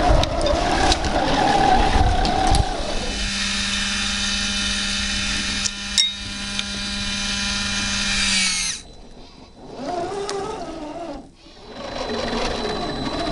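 Small electric motors of 1/10-scale RC Land Rover Defender 90 crawlers: a wavering gear whine as a truck climbs. About three seconds in, a scale winch motor starts a steady whine for about six seconds, then stops with a slight drop in pitch. The wavering drivetrain whine returns briefly near the end.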